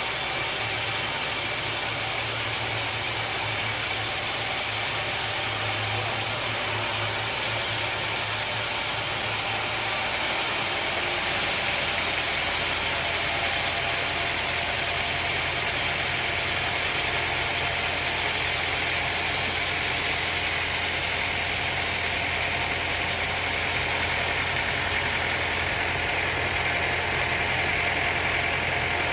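Engine of sawmill machinery running steadily, with a low hum that drops to a slightly lower pitch about ten seconds in.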